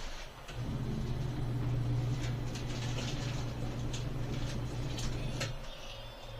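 Mini twin tub washing machine's wash motor running with a steady low hum, starting about half a second in and cutting off near the end, with a few light clicks.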